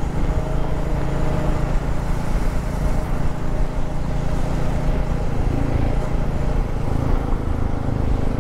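Motorcycle engine running at a steady pace while riding, under a constant rush of wind and road noise.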